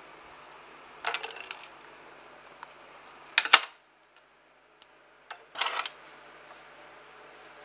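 Scissors cutting through a wooden skewer and being handled: three short clicking, crunching bursts, the middle one, about three and a half seconds in, the loudest and sharpest.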